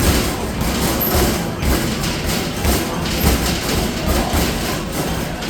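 Basketballs thudding one after another, about two a second, as they are shot rapidly at an arcade basketball machine, with the machine's game music playing behind.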